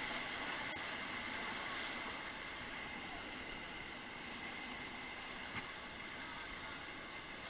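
Steady rush of river water flowing around a raft, easing slightly.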